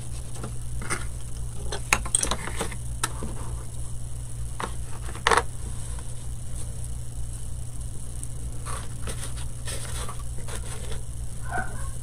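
Light clicks and taps of small painted wooden craft pieces being picked up, set down and slid about on paper over a hard countertop, with a louder knock about five seconds in.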